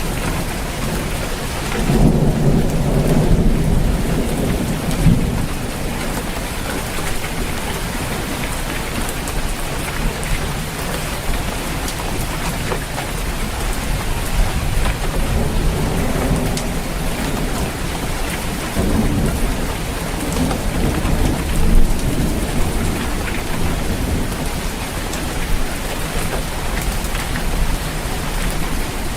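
Steady heavy rain falling on a roof, with rolls of thunder rumbling low, the loudest about two seconds in and lasting a few seconds, and further rumbles later on.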